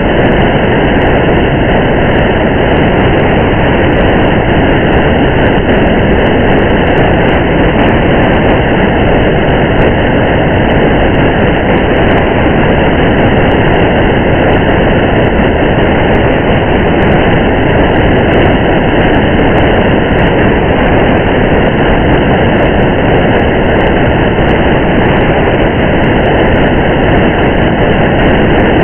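Steady rain and road noise from a car driving in the rain: a constant dense rumble and hiss, with faint scattered ticks of raindrops.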